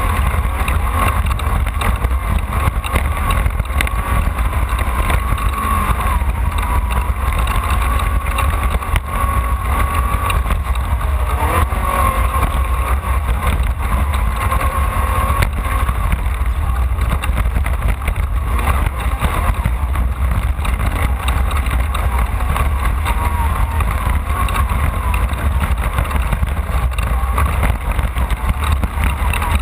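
Off-road race vehicle's engine running hard at speed, a loud steady drone with a wavering whine on top.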